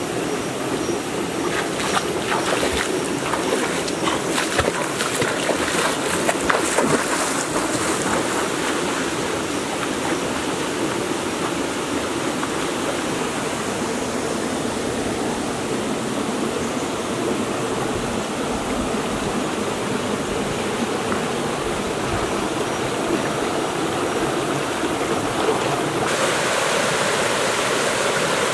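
Shallow rocky stream flowing steadily, with a run of short splashing sounds in the first several seconds. Near the end the water rush grows brighter and fuller from a small waterfall cascade.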